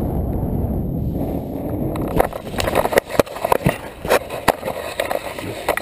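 Wind rushing over the microphone during a parachute descent. About two seconds in, the jumper lands and the wind gives way to a run of knocks, scrapes and fabric rustling right against the camera.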